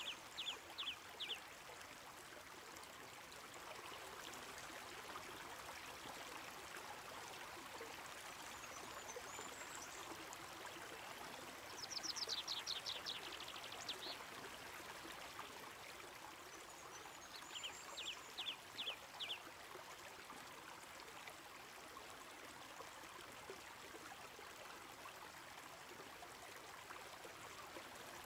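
Steady rush of a flowing mountain stream, with a bird calling in quick series of short high chirps: near the start, loudest at about twelve seconds in, and again around eighteen seconds in. Fainter, higher twitters come in between.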